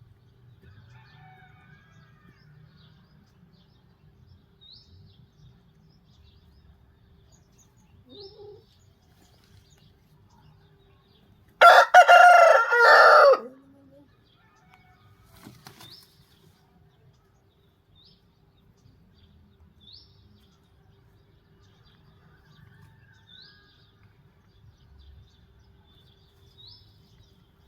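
Asil rooster crowing once, a loud crow of about two seconds near the middle. Faint short chirps come and go around it.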